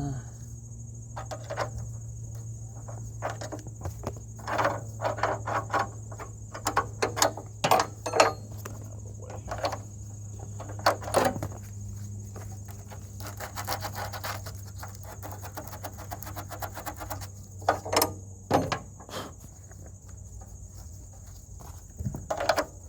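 Irregular clicks, knocks and rattles of metal parts being handled while a welder's ground clamp is fitted to a mower cutting deck. Crickets chirp steadily throughout, and a low hum cuts off about 18 seconds in.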